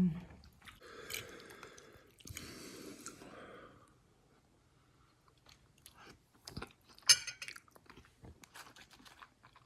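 A person chewing a mouthful of eggplant pasta, with soft chewing noise in two stretches over the first few seconds. It is followed by a quiet gap and then a run of short mouth clicks, one sharper than the rest about seven seconds in.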